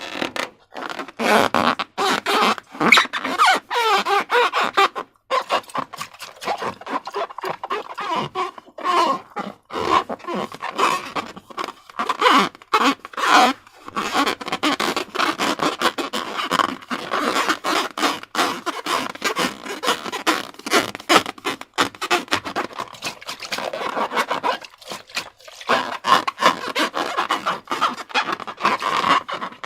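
Slime being squished and worked by hand: dense, irregular wet crackling and clicking with a few brief pauses.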